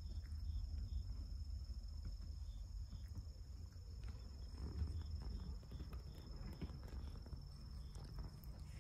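Insects trilling steadily at a high pitch, with soft short chirps repeating irregularly, over a low rumble.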